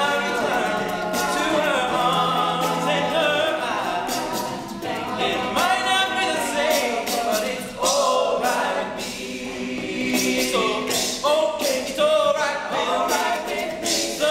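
All-male a cappella group singing a pop song in close harmony, voices standing in for the band, with sharp percussive clicks through it.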